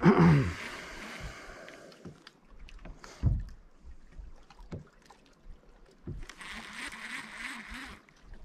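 Rod-and-reel sounds from a fishing boat: a sudden loud whir at the start that falls in pitch, like a cast, then a low thump about three seconds in. A stretch of hissy noise with a wavering low hum follows from about six to eight seconds, like the reel being cranked.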